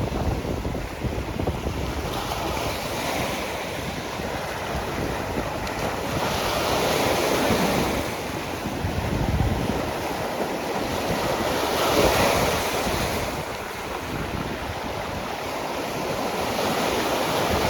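Baltic Sea waves washing onto the shore in a stiff wind, with wind buffeting the microphone. The surf swells and falls every four to five seconds.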